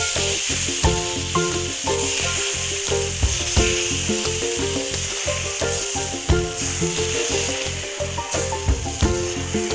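Thin rice batter for chilka (neer dosa) sizzling steadily on a hot oiled pan, under background music with a steady beat.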